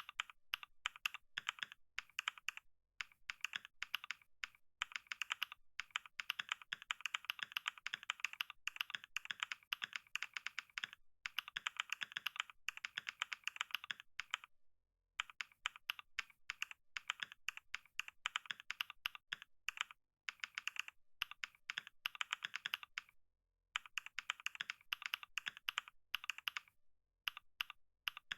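Computer keyboard being typed on continuously, a dense stream of key clicks broken by a few brief pauses, the longest about halfway through.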